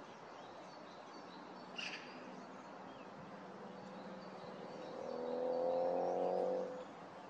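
A single short, high bird call about two seconds in, over faint distant birdsong. From about four and a half seconds a louder, steady mechanical hum with a low tone swells up and cuts off suddenly near seven seconds.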